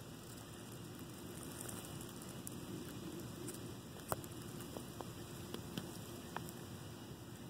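Faint, steady background noise with a handful of small sharp ticks in the second half.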